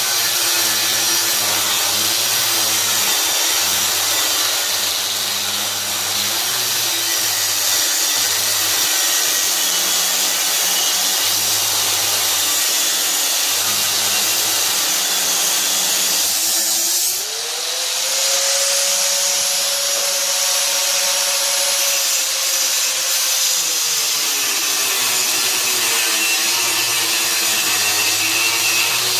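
Inexpensive Harbor Freight angle grinder cutting through steel, its motor whining at a lowered pitch under load over the harsh grinding noise. About 17 seconds in the wheel comes briefly off the work and the motor speeds up to a higher, steadier whine. A few seconds later it goes back into the cut and slows again.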